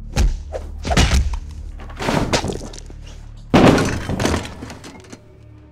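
Heavy thuds and crashes from a violent scuffle, in several bursts, with the loudest crash about three and a half seconds in and clattering that dies away after it. A faint low music drone runs underneath.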